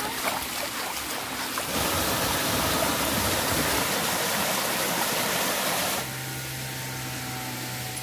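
Small stream splashing down over rocks in a steady rush of water. About three-quarters of the way through the rush drops in level and a steady low hum comes in.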